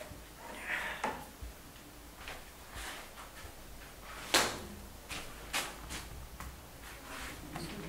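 Irregular knocks, taps and rustles of hand-painting on a wall: a brief swish of water as a hand goes into a bucket near the start, then bare paint-covered hands slapping and pressing on the plastered wall, with footsteps and clothing rustle. The sharpest slap comes about four and a half seconds in.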